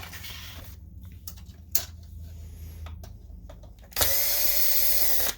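Electric screwdriver running in a steady whir for about a second and a half near the end, cutting off suddenly, after a few light clicks of parts being handled.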